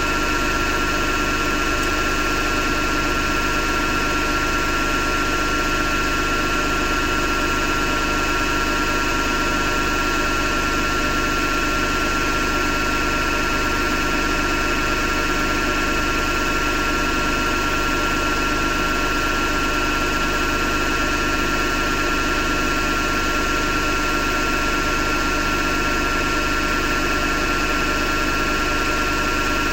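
Hotpoint Ariston FMD963 washing machine running with a steady grinding noise and a high whine, unchanging throughout. The owner thinks the grinding seems to come from the motor rather than the drum.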